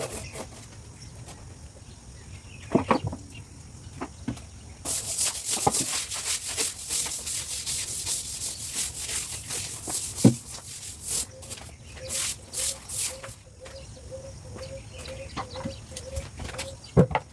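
Scrubbing a wet, soapy sidewalk washed with detergent: quick rasping strokes, dense and rhythmic from about a third of the way in until near the end, after a few scattered knocks.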